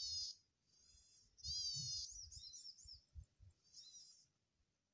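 Male cisticola calling from a treetop: four short, buzzy, high notes. The loudest, about a second and a half in, runs straight into a quick warbling twitter. Low rumbles of handling or wind on the microphone lie under the calls.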